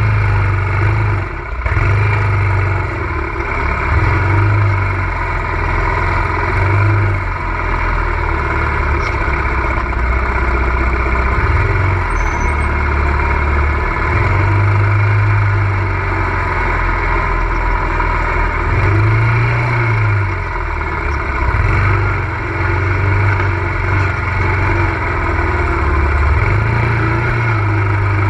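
ATV engine running steadily, its pitch rising and falling every few seconds with the throttle.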